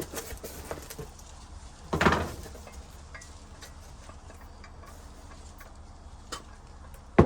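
Packed parts being handled: a short scrape or rustle about two seconds in, a faint click later, and a sharp knock near the end, over a low steady hum.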